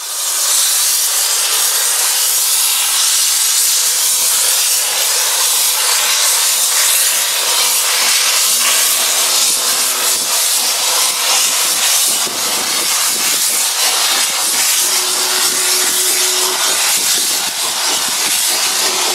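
Steady loud hiss of steam from a small saddle-tank steam locomotive's open cylinder drain cocks as it pulls away. The hiss starts suddenly.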